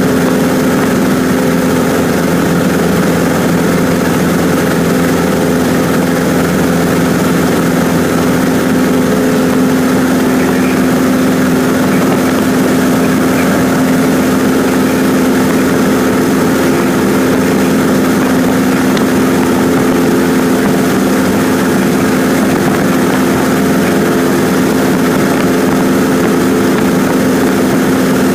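Cessna 150's Continental O-200 four-cylinder engine and propeller running steadily in level flight, heard inside the cabin as a constant hum with a few fixed tones and no change in pitch.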